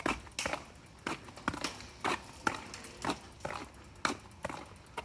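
Footsteps on an asphalt street at a steady walking pace, about two steps a second.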